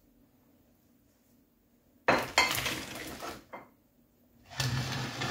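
A metal frying pan and spatula being handled on a stone worktop: two bursts of scraping and knocking, the first starting suddenly about two seconds in, the second about four and a half seconds in.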